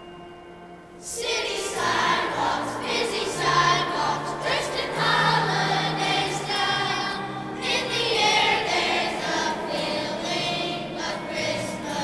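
Children's choir of fifth graders singing together, the voices coming in about a second in over a steady instrumental accompaniment.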